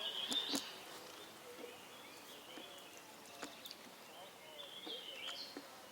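Faint bird chirps over a quiet outdoor background: a short run of chirps at the start and another about five seconds in, with a few light clicks between them.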